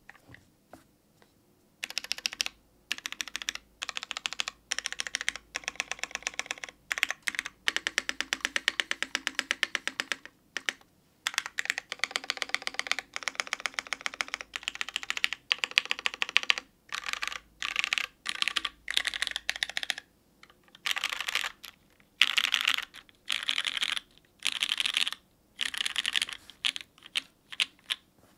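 Typing on an undampened aluminium Matrix 2.0 Add mechanical keyboard with lubed Cherry MX Black linear switches and GMK keycaps: quick runs of keystrokes in bursts with short pauses, starting about two seconds in.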